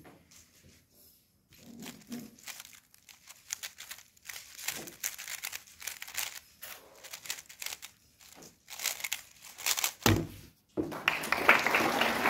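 3x3 speedcube being turned very fast: a rapid run of light plastic clicks and clacks from the layers. About ten seconds in comes a single thump, then a loud stretch of rubbing, handling noise.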